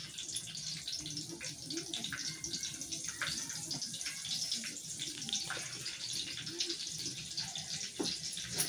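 Tadka sizzling in hot oil in a steel kadhai over a wood-fired chulha: a steady frying hiss with many small crackles and pops.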